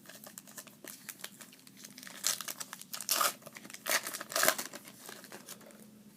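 Foil wrapper of a Bowman Platinum baseball card pack crinkling and tearing as it is opened by hand, a run of quick crackles with several louder rips about two, three and four and a half seconds in.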